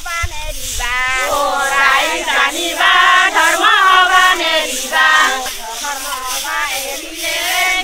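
A group of women's voices singing or chanting together in unison, many overlapping wavering voices, loudest in the middle.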